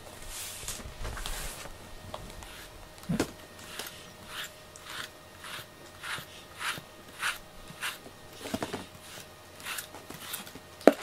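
A cat being brushed with a small pet brush: regular swishing strokes through its fur, a little under two a second, starting a few seconds in. A sharp knock sounds near the end.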